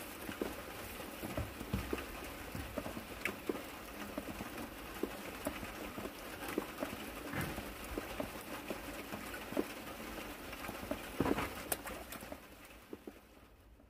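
Steady rain pattering on a pond, with irregular louder drops ticking over the hiss; it dies away near the end.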